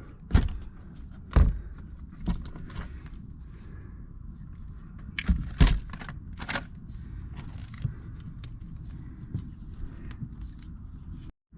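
Sharp knocks and clunks of hands-on work as the new water pump is set into place: a loud knock about half a second in, another a second later, a close pair around five and a half seconds in and one more soon after, with smaller taps between.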